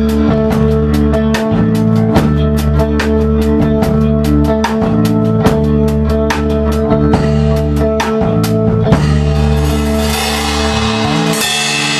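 Live rock band playing with electric guitars, bass and drum kit, the drums keeping a steady beat. About nine seconds in the beat stops and cymbals ring out over a held final chord, the low notes cutting off near the end: the song finishing.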